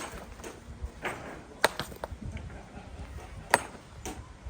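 Hammer striking stone: three hard, ringing blows about two seconds apart, with lighter knocks between them, as stones are broken up for building.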